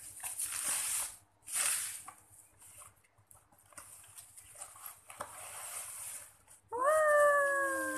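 Plastic bubble wrap and cardboard packaging crinkling and rustling in irregular bursts while a package is unwrapped. Near the end a long, slowly falling whining call starts and is the loudest sound.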